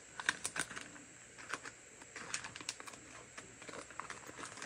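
Faint, irregular light clicks and taps of small cardboard-and-plastic tackle packages being handled and set down on a wooden table.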